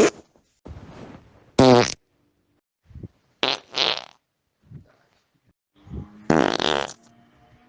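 A series of farts: a short buzzing one about a second and a half in, two in quick succession about three and a half seconds in, and a longer one about six seconds in.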